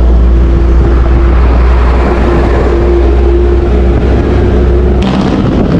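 Road traffic on a highway, including a large truck going past, over a heavy steady low rumble. A steady droning tone runs until about five seconds in, when the sound changes abruptly.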